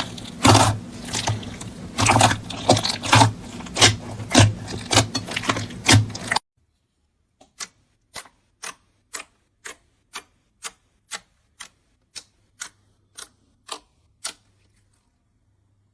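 Crisp, crackling clicks from crunchy slime being pressed and squeezed, packed closely over a steady background. About six seconds in the sound cuts to single sharp clicks, about two a second, which stop near the end.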